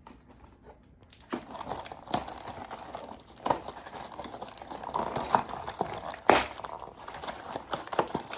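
Blind packs of collectible erasers crinkling and rustling as they are handled and pulled at, with scattered sharp crackles. It is quiet for about the first second, and the loudest crackle comes about six seconds in.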